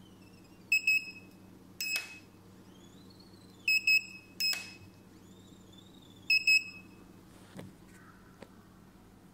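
Handheld large-character inkjet printer beeping as it prints: three times a high double beep, then about a second later a single beep with a short hiss, one group for each line it prints on the paper. A steady low hum runs underneath, and there are two small clicks near the end.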